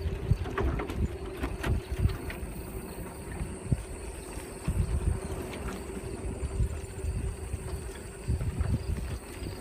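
Wind buffeting the microphone during a bicycle ride, with scattered clicks and knocks from the bike rolling over the trail.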